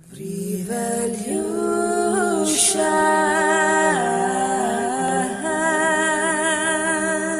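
Intro music of female voices singing long held notes in layered harmony, with a slight waver in pitch.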